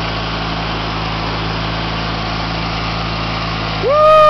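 Craftsman LT1000 riding lawn tractor engine running steadily while mowing. Near the end a loud drawn-out cry cuts in, rising then sliding down in pitch.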